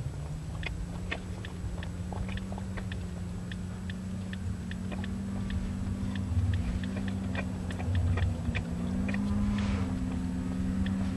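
A small engine running steadily at low speed, its pitch creeping slightly upward, with scattered sharp clicks and crunches over it.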